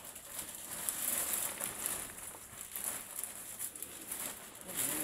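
Faint rustling and shuffling of workers moving about in plastic protective coveralls, with a few light taps.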